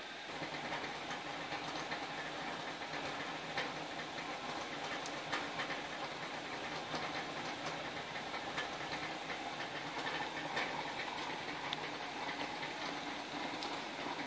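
PKP class Ol49 steam locomotive standing in steam with its fire in: a steady hiss of escaping steam, with small irregular clicks and pops throughout. Its simmering boiler water is burbling.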